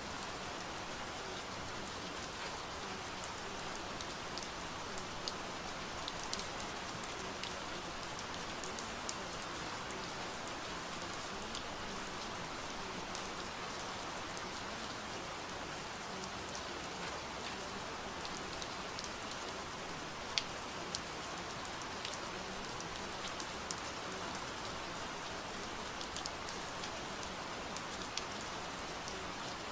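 Steady rain falling, an even wash of noise with scattered sharper drop ticks, one of them louder about twenty seconds in.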